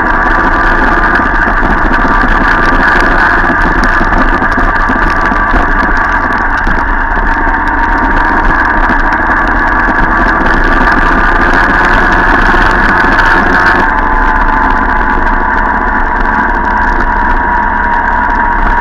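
A Jawa Pionýr moped's 50 cc two-stroke single-cylinder engine running steadily at riding speed, heard close up from the moped the camera is mounted on, with other mopeds in the convoy around it.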